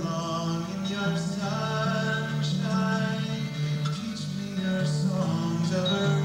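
Background music: a soundtrack of held notes over a bass line that shifts pitch every second or so.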